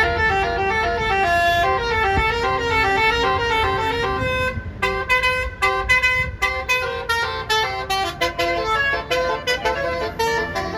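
Basuri musical air horn on a bus playing a telolet melody: a run of stepping horn notes, turning to quick staccato notes about halfway through.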